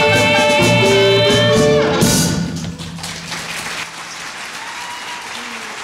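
Musical accompaniment holding a final chord that cuts off about two seconds in, followed by audience applause to the end.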